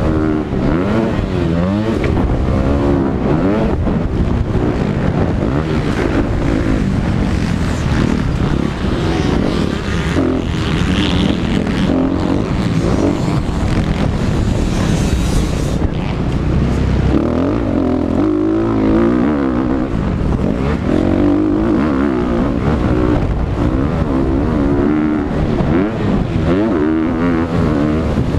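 Motocross dirt bike engine racing, its pitch repeatedly rising and falling as the rider opens and shuts the throttle and shifts through the gears, with a hissing rush of wind over it.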